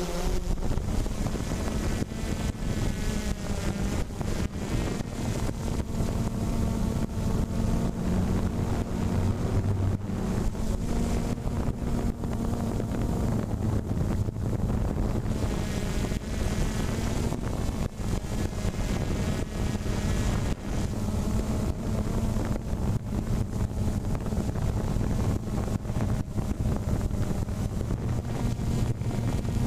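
A steady motor hum whose pitch shifts slightly, with wind buffeting the microphone.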